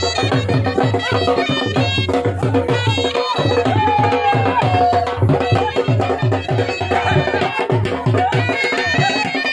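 Dhol drum beating steadily, about three strokes a second, under a melody with a gliding note partway through: traditional folk music.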